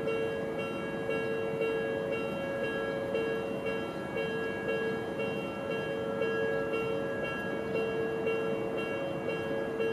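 Odakyu train approaching along the line: a steady rolling rumble, overlaid by a set of high steady tones that keep breaking off and restarting.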